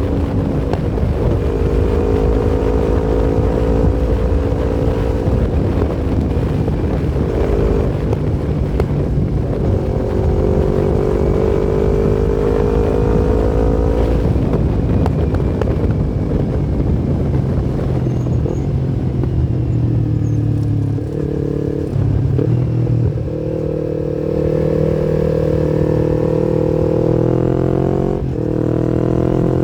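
Yamaha MT-25's parallel-twin engine under way, pulling up in pitch and dropping back at each gear change, several times over. In the middle it eases off to a lower note before climbing through the gears again.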